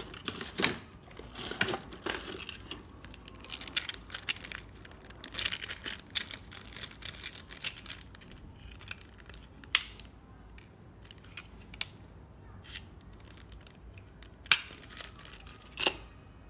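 Rummaging through spare electronic parts to find a replacement 10N60 MOSFET: a run of crinkling and rustling with many small clicks, busiest in the first half, then thinning out to a few sharp clicks near the end.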